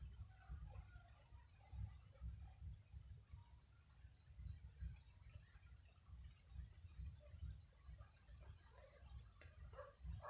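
Faint outdoor ambience: a steady high-pitched drone of insects over a low rumble of wind, with a few faint animal calls near the end.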